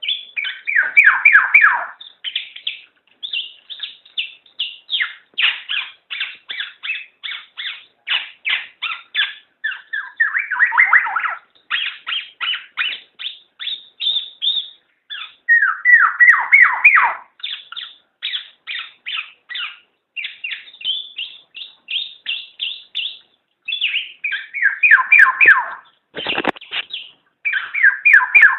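Black-naped oriole (kepodang) calling: quick runs of short chirping notes, broken every few seconds by a louder, harsher cascade of notes that slides down in pitch.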